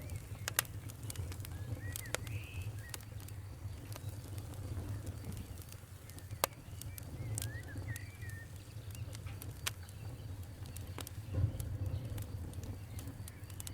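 Wood fire crackling: scattered sharp pops and snaps over a low steady rumble, with a few louder pops spread through.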